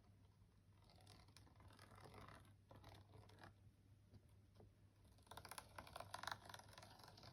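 Very faint crackling and scratching of hands squeezing a bottle of craft glue along the edges of a binder cover and handling the paper, with a cluster of small clicks about five to six and a half seconds in.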